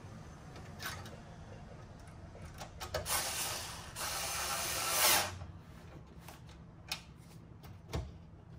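Hand work on a metal computer chassis: a few light clicks and knocks, and a mechanical ratcheting rattle lasting about two seconds, starting about three seconds in.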